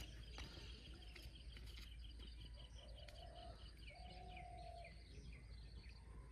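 Faint bird song outdoors: a long, quick run of high chirping notes, with a faint low buzz twice in the middle.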